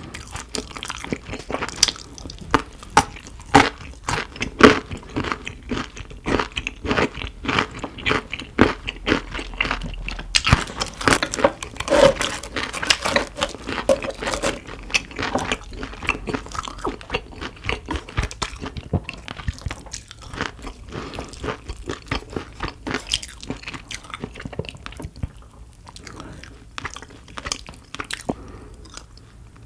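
Close-miked ASMR eating sounds: a person chewing food, with frequent crisp crunches, densest in the first half and thinning toward the end.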